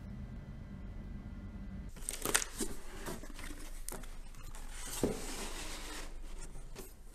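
Corrugated cardboard panels being handled and folded together: rustling, scraping and knocking of cardboard that starts about two seconds in, after a steady low hum, with sharp knocks then and again about five seconds in.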